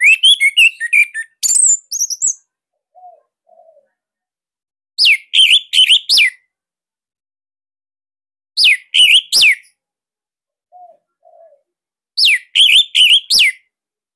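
Orange-headed thrush (anis merah) singing: a quick jumble of twittering high notes at first, then the same short phrase of sharp, falling whistled notes repeated three times, about every three and a half seconds. Two faint low notes sound between the phrases.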